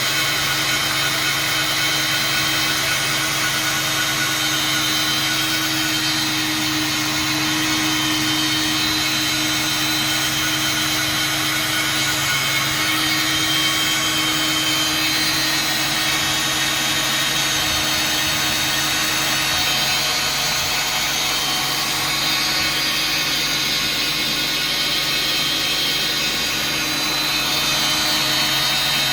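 Electric power tool running continuously, a steady motor hum with a high whine that holds its pitch.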